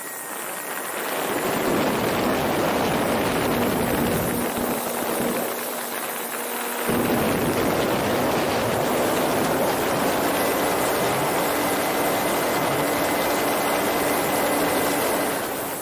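Radio-controlled model warplane in flight heard from a camera on board: the steady drone of its motor and propellers under a loud rush of wind past the microphone, the wind getting heavier and deeper about seven seconds in.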